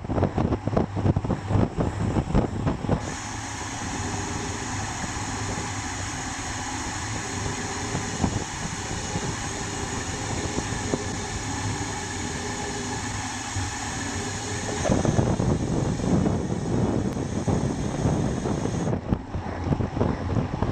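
Road bike descending at speed: wind buffets the microphone. From about three seconds in, while the rider coasts, a steady whirring buzz from the rear freehub ratchet takes over for about twelve seconds, then the gusty wind noise comes back.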